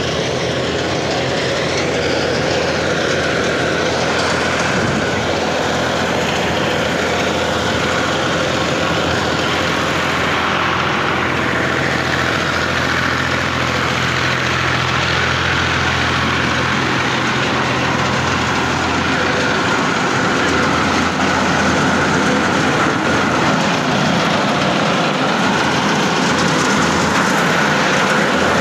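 Tractor-driven thresher running steadily while threshing canola (mustard): a loud, continuous mechanical din with the tractor engine's steady low hum underneath, growing a little louder near the end.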